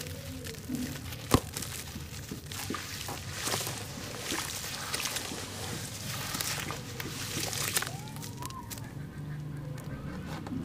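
Wet sand-cement and charcoal-ash chunks squeezed and crumbled by hand, with gritty crunching and crumbs falling into the water in the tub. A sharp click about a second in is the loudest sound.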